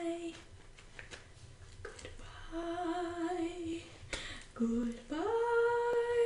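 A woman's voice humming a few held notes without words; the last note starts low, slides up and is held.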